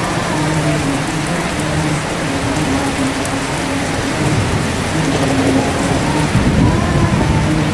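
Steady heavy rain pattering on a surface, with a low rumble of thunder swelling near the end.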